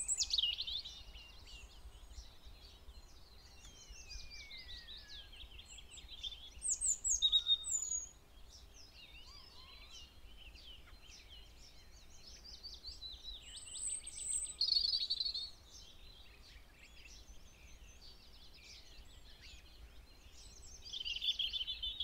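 Garden birds singing and calling: a run of high chirps, twitters and trills, with louder phrases about seven seconds in, about fourteen seconds in and from about twenty-one seconds in, and one falling whistle a few seconds in.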